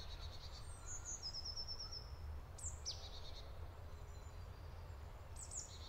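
Birds calling faintly in woodland: a quick trill of about eight high notes around a second in, a couple of falling chirps near three seconds, and more chirps near the end, over a low steady rumble.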